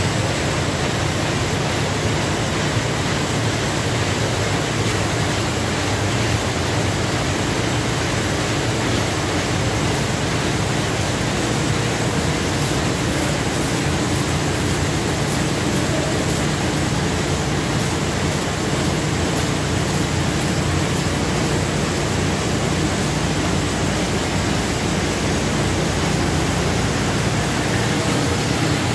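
Two-ply flat-handle paper bag machine running: a loud, steady machine din with a low hum and no separate strokes standing out.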